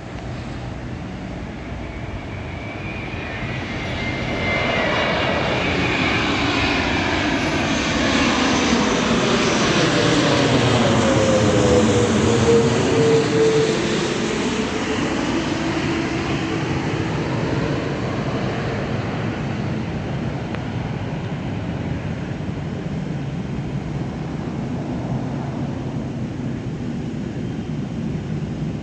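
Passenger jet passing low overhead near the airport. Its engine noise grows louder to a peak about twelve seconds in, the pitch drops as it goes by, and then it slowly fades away.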